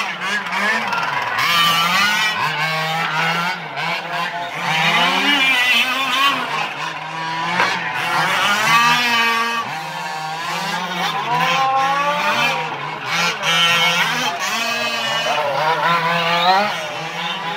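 Several 1:5 scale Losi RC race cars' engines revving up and down as they lap. Their pitches rise and fall and overlap continuously.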